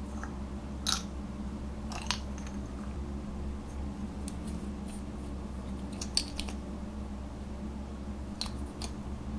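Scattered sharp plastic clicks from small makeup containers being handled and opened, a jar and a lip-tint tube with its applicator cap pulled off; the loudest click comes about six seconds in. A steady low hum runs underneath.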